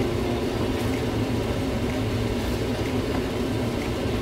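A steady low mechanical whir, with a few faint light ticks near the end as a wooden spoon stirs a stainless steel pot.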